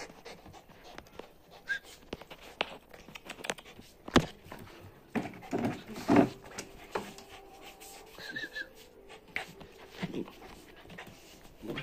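A dog panting up close as it jumps about, with scattered sharp taps and clicks, the loudest about four seconds in.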